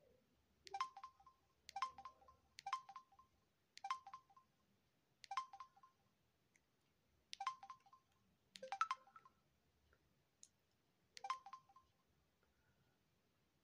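Samsung SGH-Z400 mobile phone's key presses, each a short click with a brief electronic beep, about eight times at uneven intervals as its navigation key steps through menus.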